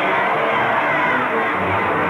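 A crowd cheering and shouting in welcome, mixed with newsreel background music that comes forward near the end.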